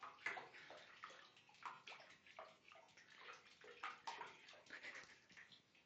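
Shallow bathwater in a tub lapping and splashing lightly as two bearded dragons swim through it, in short, irregular splashes.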